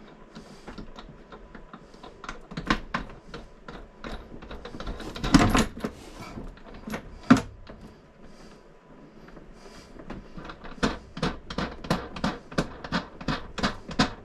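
Clicks and knocks of hands and tools working on the toilet's mounting hardware in a cramped space, with two louder knocks in the middle and a quick run of ticks, about three a second, near the end.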